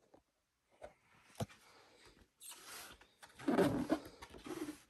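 A cardboard product box being handled on a bedspread: a single sharp knock about a second and a half in, then rustling and scraping as the box is grasped and shifted, loudest in the last second and a half.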